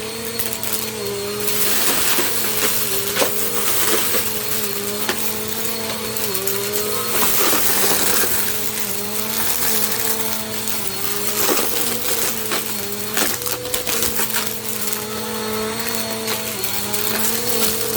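Bissell compact vacuum cleaner running, its motor hum wavering slightly in pitch under a steady rush of airflow hiss, with scattered clicks and rattles throughout.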